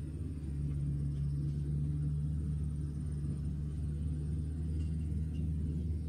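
Diesel engine of a Tigercat forestry machine running with a steady low drone, as its processing head handles logs.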